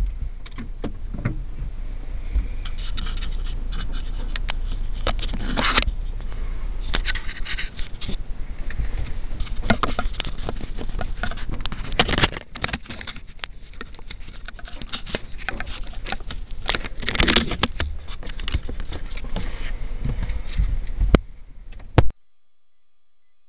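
Handling noise from a small camcorder being moved about inside a car: irregular scraping, rubbing and knocks against the microphone, cutting off abruptly near the end.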